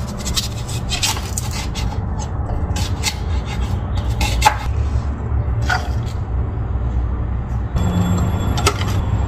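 Kitchen knife peeling and slicing an onion on a wooden cutting board: scraping and rubbing with scattered sharp knife taps on the board, over a steady low rumble.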